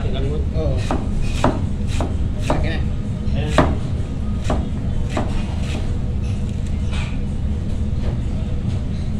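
Kitchen knife chopping a head of cabbage on a cutting board: sharp, uneven strokes about every half second, the loudest a little past three seconds in, fewer near the end. A steady low hum runs underneath.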